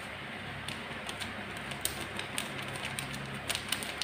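Small sharp clicks and crinkles of a metal spoon scooping ground cumin out of a plastic spice packet, sparse at first and coming thick and fast near the end, over a steady low hiss.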